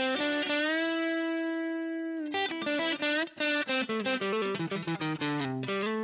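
Electric guitar on its front pickup, played through the BOSS BR-900's COSM 'Match Drive' amp model, a Matchless-style overdrive. A note is bent up and held for about two seconds, then comes a fast run of single notes, ending on a held note.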